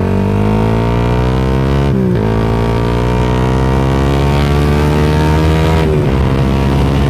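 Suzuki Satria FU fuel-injected single-cylinder four-stroke with a Tritech Ronin Katana SE aftermarket exhaust, accelerating hard. The engine pitch rises steadily, drops at an upshift about two seconds in and again about six seconds in, then climbs again each time.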